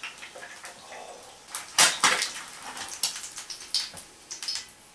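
A plate and cutlery clinking and clattering on a kitchen counter, with a sharp clatter of several knocks about two seconds in and lighter clinks after.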